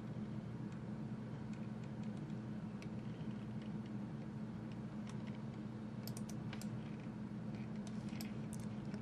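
Sparse clicks from a computer mouse and keyboard, few at first and more frequent in the last few seconds, over a steady low hum.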